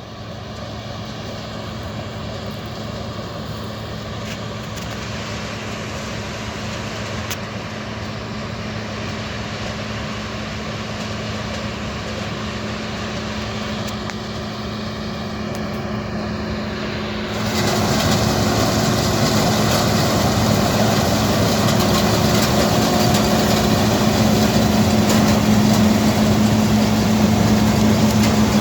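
Combine harvester running with a steady engine hum. About two-thirds of the way in, the sound suddenly gets louder and harsher.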